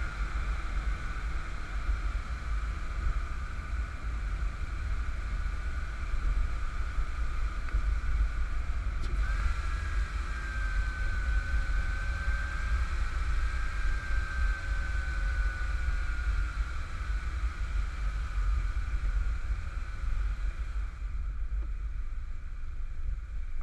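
1991 Camaro Z28 1LE running at speed, heard through a camera mounted low on the outside of the car: heavy wind rumble on the microphone over road noise, with a steady high whine that wavers in pitch. The noise drops near the end.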